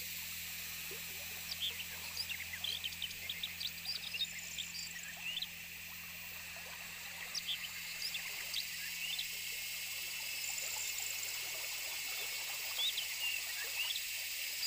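Swamp-forest ambience: a steady high insect drone with many short, rising chirps from small wild animals scattered throughout, over a faint low hum.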